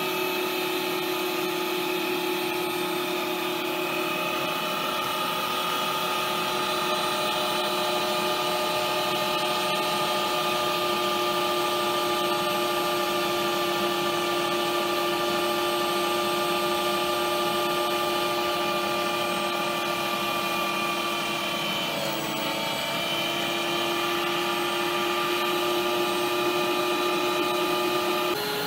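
Bosch ProPower electric meat grinder motor running steadily with a whining hum while it forces a soft object through the grinding plate. About three-quarters of the way through, the pitch dips briefly and then recovers.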